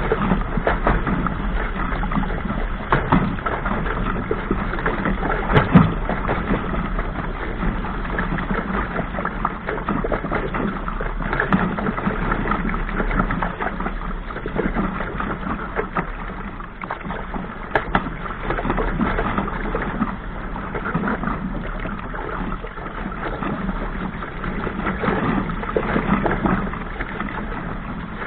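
Water rushing and splashing along a small sailing dinghy's hull as it sails through choppy waves, over a steady low rumble. A few sharp knocks of the hull against the waves, the loudest about six seconds in.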